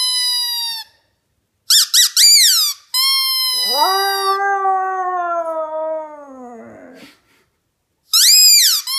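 A squeaky dog toy squeaks in short, high-pitched bursts, and a Siberian husky puppy answers with one long howl, lower than the squeaks, starting about four seconds in and dropping in pitch as it fades. One more squeak comes near the end.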